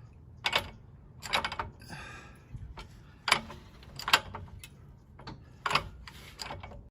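Floor jack being pumped by its handle: a series of sharp metallic clacks, about seven, spaced unevenly roughly a second apart, with faint scraping between.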